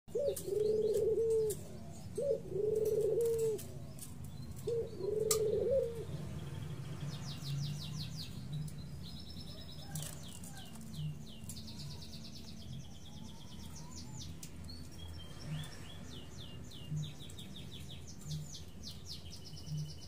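A ringneck dove coos three times in the first six seconds, each coo long and low. After that, zebra dove chicks being fed in the nest give runs of rapid, high-pitched begging squeaks.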